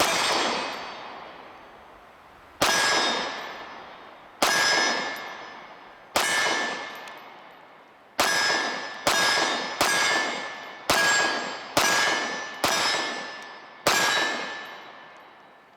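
SIG Sauer P365 9mm micro-compact pistol fired in slow succession: about ten sharp shots, each trailing off in a ringing tail. The shots come about two seconds apart at first and quicker in the second half.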